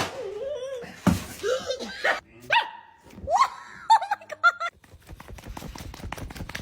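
A dog vocalising: wavering whines and rising yelps, then several short high barks in quick succession, followed by a run of quick light taps.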